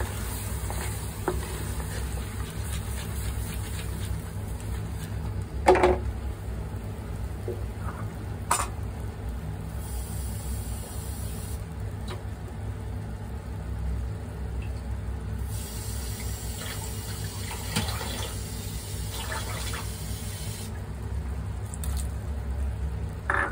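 Shrimp in sauce simmering in a pan, with water just added: a steady bubbling hiss over a low rumble. Two sharp knocks stand out, one about six seconds in and one a few seconds later.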